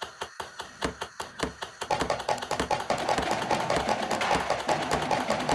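Rapid, even tapping on an Aeropress coffee maker to settle the ground coffee in the chamber, about five taps a second at first, then faster and louder about two seconds in.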